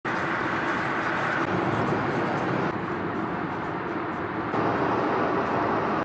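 Steady road and engine noise heard inside a car driving at speed on a highway, with two abrupt shifts in the noise partway through.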